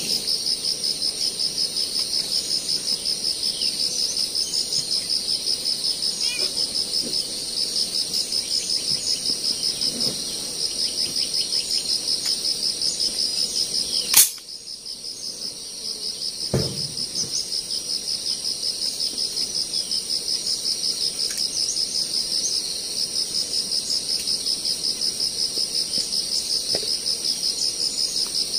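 Insects trilling steadily in a fast pulsing rhythm, with one sharp crack of a gun being fired about halfway through; the insects fall silent for a moment after the shot, and a dull thud follows about two seconds later.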